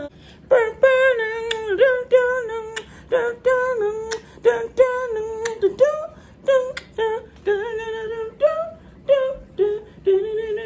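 A woman singing in a high voice without words: a run of short notes, most on nearly the same pitch.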